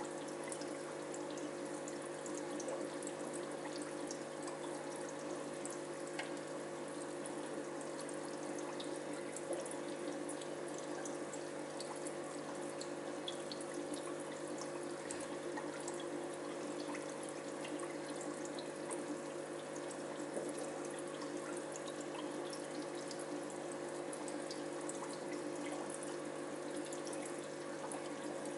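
Aquarium filter running: a steady trickle of water with many small bubbling pops over a steady hum.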